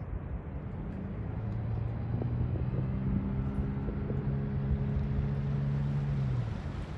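Small boat's outboard motor running as the boat pulls away, a steady low hum that drops out near the end, over a low wind rumble on the microphone.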